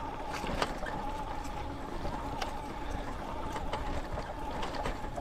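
A 750-watt e-bike conversion kit's electric motor whining steadily under way, over rolling tyre and wind noise, with occasional faint clicks.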